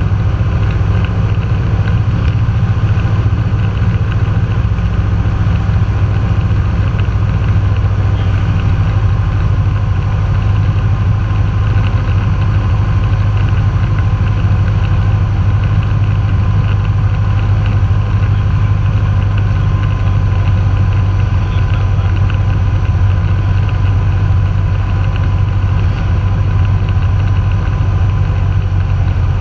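Cessna 172's piston engine and propeller running steadily in flight, heard from inside the cockpit: a loud, even, deep hum with no change in pitch.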